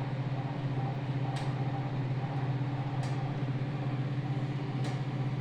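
Microwave oven running on convection at 160 near the end of a bake: a steady low hum from its fan and motor, with a faint tick every second or two.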